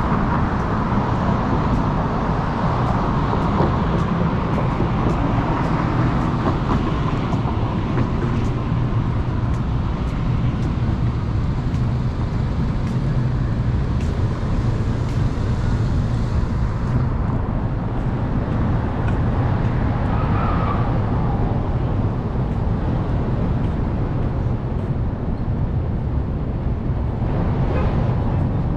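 Steady low rumble of vehicle noise, with faint clicks throughout; the hiss above it drops away about seventeen seconds in.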